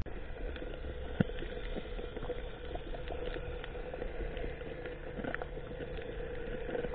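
Underwater reef ambience: a steady engine hum from a boat heard through the water, with scattered small clicks and crackles and one sharper click about a second in.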